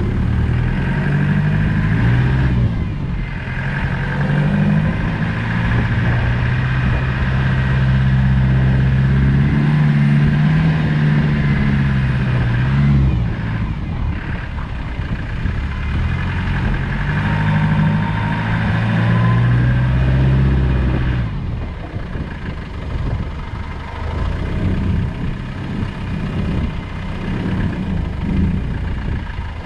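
Land Rover Discovery 200Tdi's 2.5-litre four-cylinder turbodiesel driving off road, its revs rising and falling with the throttle. After about twenty seconds it drops to a rougher, lower-revving run.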